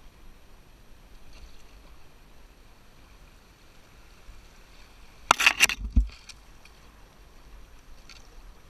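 Faint water sounds around a moving canoe, broken about five seconds in by a loud, brief scraping rustle under a second long, as overhanging brush sweeps along the canoe and past the camera.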